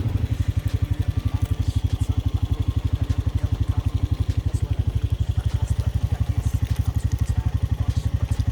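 ATV (quad) engine idling with a steady, even chugging of about a dozen beats a second.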